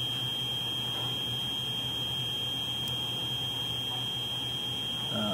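Steady background sound: a constant high-pitched whine with a low hum and faint hiss underneath.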